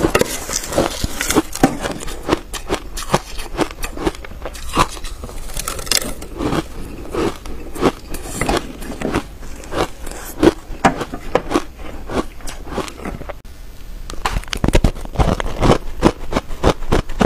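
Close-miked crunching and biting of ice coated in matcha powder: a quick, irregular run of sharp crunches. A short lull comes near the end, then louder, denser bites into larger frozen chunks.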